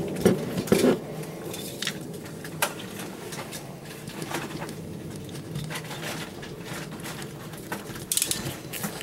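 Wire and hand crimping tool being handled: scattered clicks and light knocks, the two loudest in the first second. Near the end comes a quick run of clicks as the crimper is worked onto the connector.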